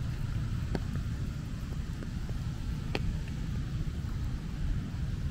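Light rain pattering on an umbrella, with a few sharper single ticks, the loudest about three seconds in, over a steady low rumble.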